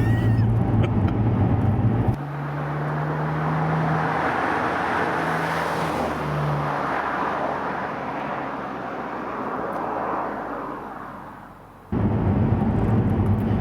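Alfa Romeo Brera's 3.2 V6 running steadily at cruise, heard inside the cabin, its new ignition coil and spark plug having cured a misfire. About two seconds in it cuts to roughly ten seconds of a car's road and tyre noise heard from outside, swelling and then fading away, before cutting back to the cabin drone near the end.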